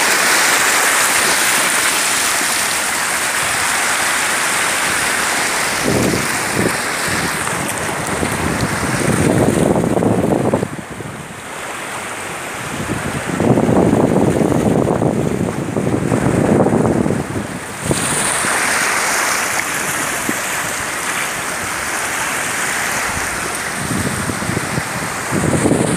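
Sea surf washing over a rocky shore: a steady rushing hiss that swells louder a few times, with wind on the microphone.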